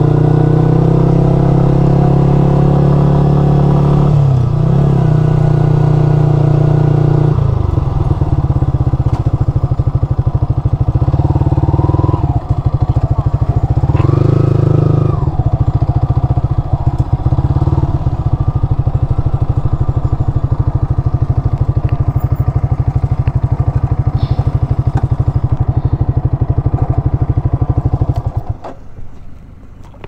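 Yamaha R15 sport motorcycle's single-cylinder four-stroke engine running at low speed while the bike is ridden slowly, with a few brief shifts in pitch including a short rise a little past halfway. The engine sound drops away near the end as the bike stops in a parking bay.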